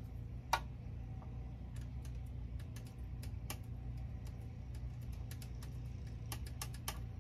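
Irregular small clicks and taps of hands working a plastic sprinkler-controller enclosure and its fittings, with one sharper click about half a second in and a quick run of clicks near the end, over a steady low hum.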